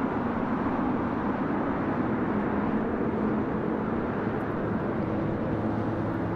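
Boeing 777-300ER cabin noise: a steady rushing hum from the GE90 engines and airflow, with a low engine tone that steps up in pitch about five seconds in.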